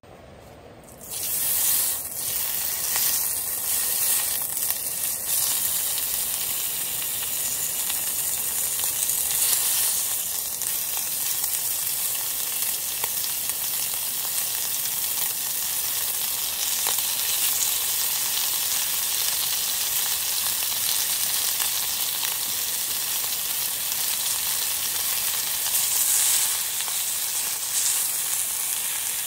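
Thin-sliced meat sizzling in hot oil in a small cast-iron pot. The sizzle starts suddenly about a second in as the meat goes into the oil, then keeps frying steadily.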